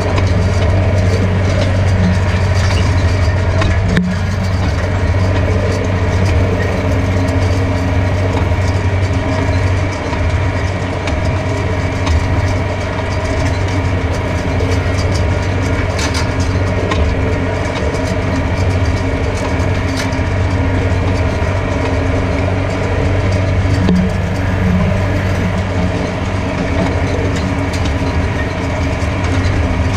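Farm tractor's diesel engine running at a steady speed, a constant low hum with no change in pitch.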